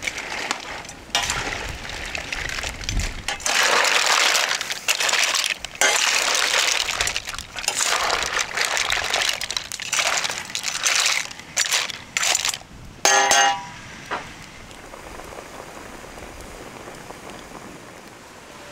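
Mussels sizzling and hissing in a hot steel cauldron over a wood fire, in bursts, with the shells clinking against each other and the pan. A short ringing clink comes about thirteen seconds in, after which the sizzling goes quieter and steadier.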